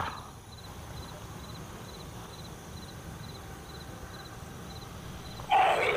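Crickets chirping in a steady, evenly repeating pattern over a faint low rumble. Near the end comes a short, louder burst of noise.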